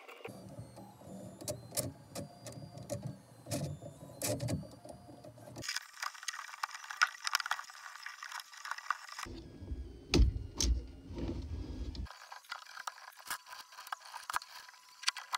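Irregular clicks, taps and scraping of 3D-printed plastic spacers and stator frames being slid onto steel rods and screws and knocked together, with a heavier knock about ten seconds in.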